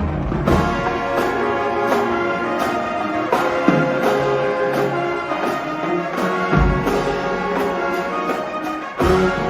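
Music with brass instruments over a steady beat; the deep bass drops away about a second in and comes back strongly about six and a half seconds in.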